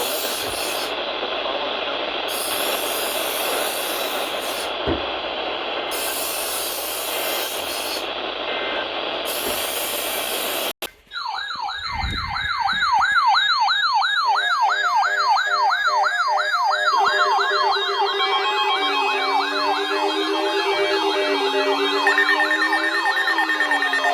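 A steady hiss of static cuts off sharply partway through. About a second later an electronic siren starts, warbling fast up and down, and synthesized music tones build up beneath it.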